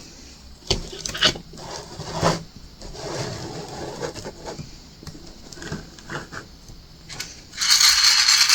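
Small clicks and taps of diamond-painting work, the drill pen picking up resin drills and pressing them down. About seven and a half seconds in, a loud, steady rattle of many small resin drills shaken in a tray starts.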